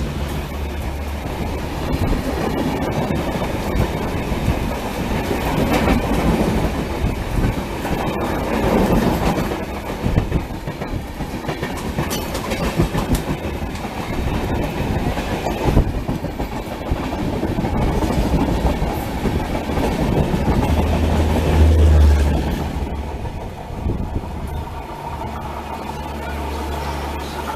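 Rajdhani Express passenger coaches running through the station at speed, their wheels clattering over rail joints in a long stream of irregular clicks. Near the end a steady low hum comes in.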